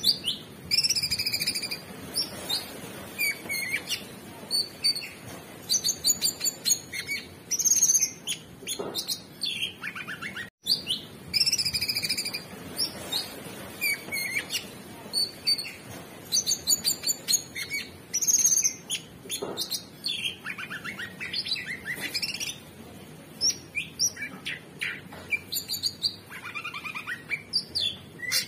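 Orange-bellied leafbird singing vigorously: a rapid, varied string of chirps, whistles and short trills, with a brief cut-out about ten seconds in.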